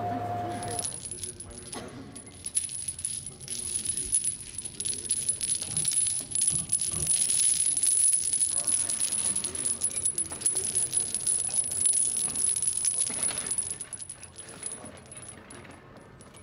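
Dozens of small metal cylinders hanging on strings from a disc, part of a custom-built sound sculpture, clinking and rattling against one another as performers' heads move through them: a dense jingling that thins out near the end. A thin, steady high tone runs under it.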